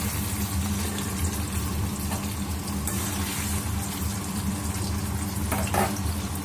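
Paneer cubes sizzling as they fry in hot refined vegetable oil in a wok, a steady hiss over a low steady hum, with a couple of faint knocks near the end.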